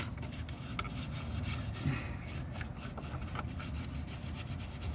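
A small hand brush scrubbing dirt and brake dust out of the front wheel hub's bearing seat, cleaning it so the new bearing can go in. The scrubbing makes a run of quick, irregular scratchy strokes.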